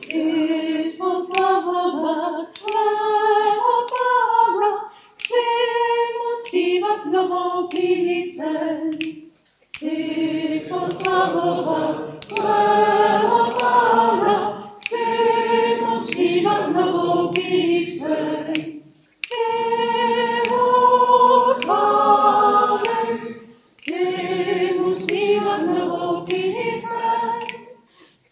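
A choir singing a cappella, in phrases separated by brief pauses.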